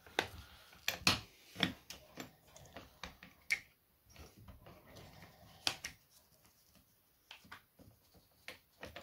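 Irregular light clicks and knocks of the chainsaw attachment's mounting plate and parts being handled and fitted by hand onto the angle grinder's head, the sharpest about a second in, at about three and a half seconds and near the middle.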